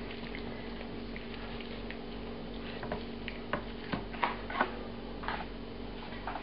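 Wet squishing and smacking of hands rubbing oil and herbs into a raw chicken on a wooden board, with a cluster of sharper smacks about three to four and a half seconds in. A steady hum runs underneath.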